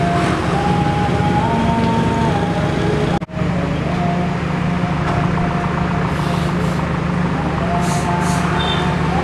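Steady low drone of the standing Kutojaya Selatan passenger train's diesel power idling, with faint wavering tones above it. The sound cuts out for a split second about three seconds in.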